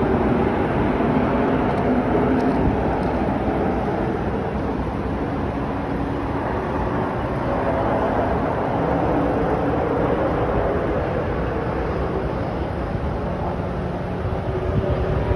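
Steady drone of distant engines over a low rumble, holding at an even level with slight wavering in pitch.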